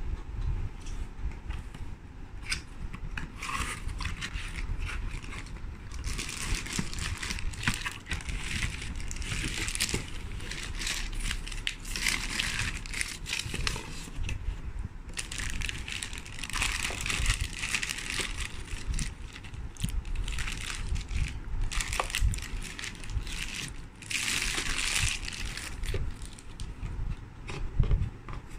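A cardboard box and its packaging being opened and a plastic carrier lifted out: crinkling and rustling in bursts of a couple of seconds each, with small knocks and a low rumble of handling between them.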